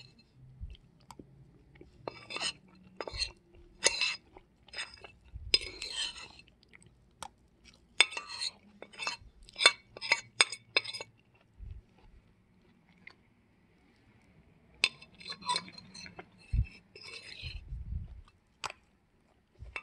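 A metal fork clinking and scraping against a plate in sharp, irregular clicks, with chewing in between. A quiet pause of a couple of seconds comes a little past the middle.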